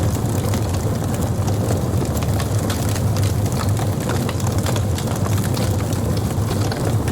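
Wood burning in a campfire: a steady low rush of flame with many small crackles and pops scattered throughout.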